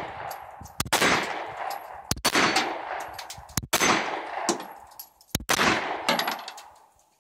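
A handgun fired four times at a steady, deliberate pace, about a second and a half apart. Each shot is followed by a long echo off the range's berms.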